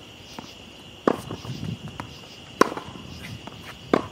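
Tennis ball struck by Head racquets strung with Kirschbaum strings in a baseline groundstroke rally: three sharp hits about a second and a half apart, with fainter bounces between them. A steady chirping of crickets runs underneath.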